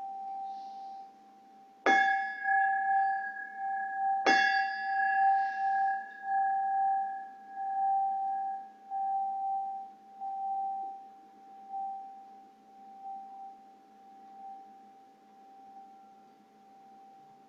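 Singing bowl struck twice, about two seconds apart, ringing on with a slow pulsing waver that gradually fades.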